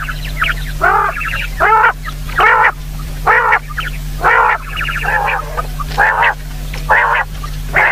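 Common quail calling: a series of short, arched, nasal notes repeated roughly once a second, about nine in all, with a steady low electrical hum underneath.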